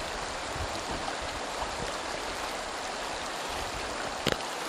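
Shallow, stony mountain river running over rocks: a steady rush of flowing water. A single brief sharp click sounds near the end.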